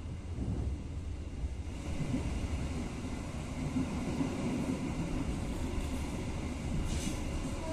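Passenger train running, heard from inside the coach: a steady low rumble, with a brief hiss near the end.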